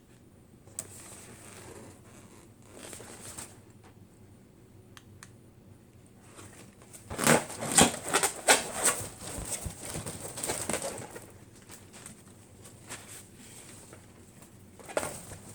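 Latex party balloons being handled and popped. A quick cluster of sharp snaps and crackles comes about seven seconds in, followed by rubbery rustling and another sharp snap near the end.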